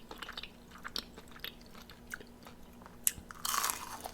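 Close-miked chewing of crispy fried chicken wings: small wet mouth clicks and smacks, with a louder crunch about three and a half seconds in.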